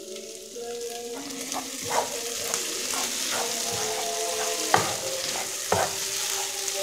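Chicken pieces sizzling as they fry in oil in a metal pan while a plastic spatula stirs them. A few sharp knocks of the spatula against the pan break through, the loudest nearly five seconds in. The water has cooked off and the chicken is browning.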